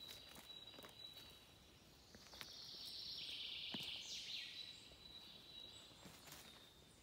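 Quiet woodland ambience: a thin, steady high whine throughout, a louder high, hissing trill of a bird or insect for about two and a half seconds in the middle, and a few soft steps on dry leaf litter.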